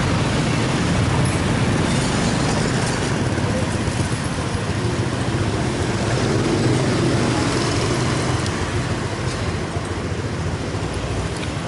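Steady street traffic noise: a continuous low rumble with hiss.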